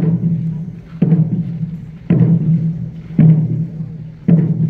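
Large ceremonial drum beaten in a slow, even march beat, about one stroke a second. Each stroke rings on low and fades before the next.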